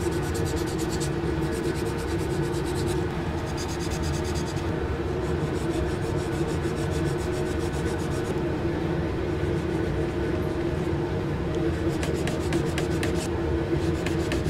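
Sandpaper rubbed by hand in quick back-and-forth strokes on walnut, in several stretches with short pauses, over a steady low hum.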